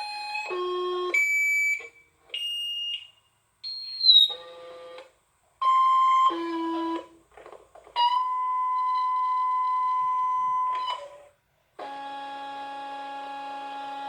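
Electronic emergency-alert tones: a run of short beeps jumping between high and low pitches, then one steady tone held for about three seconds. After a short gap, a buzzier tone made of many pitches at once starts near the end.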